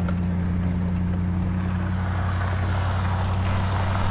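Pickup truck driving on a dirt mountain road, heard from inside the cab: a steady low engine drone with road and tyre noise.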